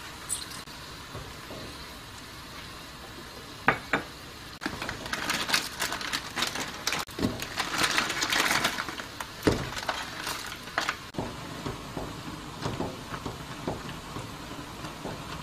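Broth simmering in a nonstick wok on a gas stove with a steady hiss. From about four seconds in come sharp knocks and a long stretch of crackling and rustling as blocks of instant ramen noodles go into the pan, then lighter clicks as a silicone spatula works them.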